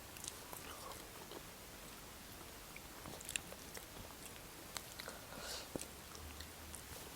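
Faint mouth sounds of someone eating fried chicken legs: soft biting and chewing with scattered small clicks.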